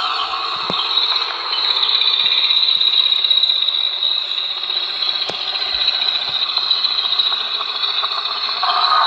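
Designed dinosaur sound effect: a continuous, noisy, grating call with no clear pitch, holding steady for several seconds.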